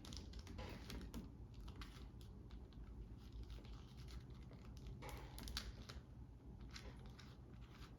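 Mini puzzle cube being twisted by hand, its small plastic layers clicking faintly in quick, irregular runs, as turns are made to form a checkerboard pattern.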